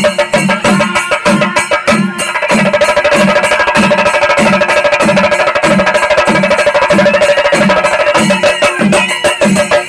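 Chenda melam: a Kerala temple ensemble of chenda drums beaten with sticks in a fast, dense rhythm over a deep beat about twice a second. From about two and a half seconds in, a steady high note holds over the drumming.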